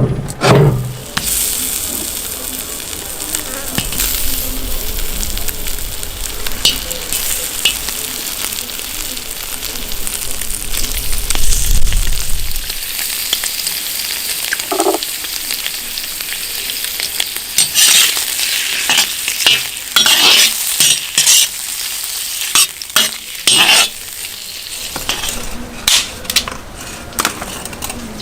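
Food frying in hot oil in a pot, with a steady sizzle. In the second half, a utensil scrapes and knocks against the pot in a run of quick clatters as the contents are stirred.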